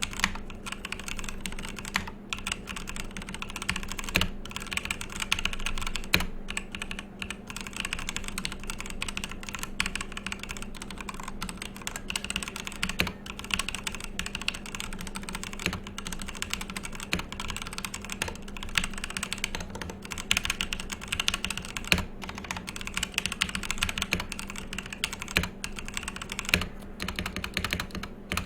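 Continuous fast typing on a HyperX Ducky One 2 Mini mechanical keyboard with HyperX keyswitches: a dense run of key clicks and bottoming-out strikes, with a steady low hum underneath.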